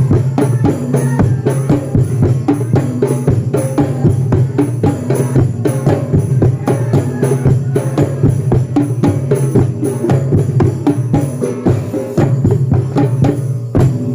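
Percussion-heavy music: rapid, evenly paced drum strikes over a held low tone with some pitched notes above it.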